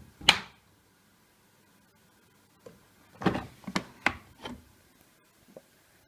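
Laundry being loaded into a Siemens iQ700 front-loading washing machine: one sharp knock, then a quick run of four or five knocks and rattles about three seconds in, and a small click near the end.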